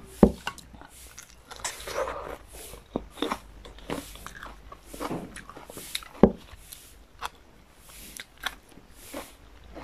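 Close-up eating: biting and chewing grilled green chili and rice, with wet mouth clicks and smacks. Two sharp knocks stand out, one just after the start and one about six seconds in.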